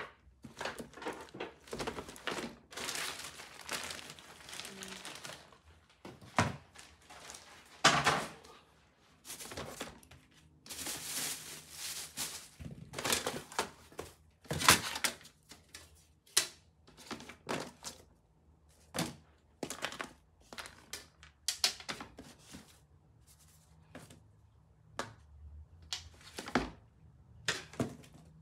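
Things being lifted out of a clear plastic storage tote and set down: irregular knocks and thunks of picture frames and other items against the plastic, with stretches of paper and plastic-bag rustling.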